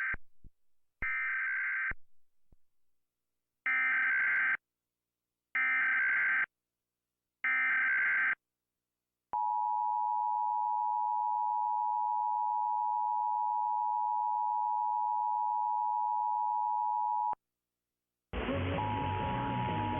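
Emergency Alert System broadcast tones: a run of harsh, buzzing digital data bursts about a second long with short gaps between them, then the steady two-tone attention signal for about eight seconds. After a brief gap, a hissier recording with a similar tone starts near the end.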